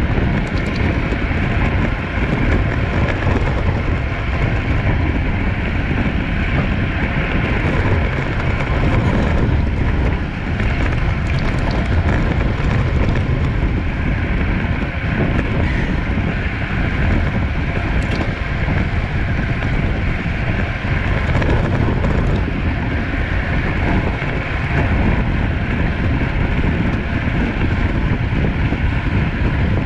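Steady rush of wind over the microphone of a road bike ridden at racing speed, heaviest in the low end, with road and tyre noise beneath it.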